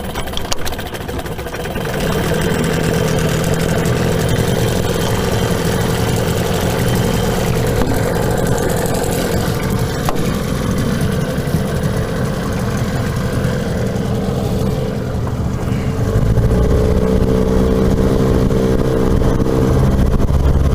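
An engine running steadily, a little louder and with a changed pitch near the end.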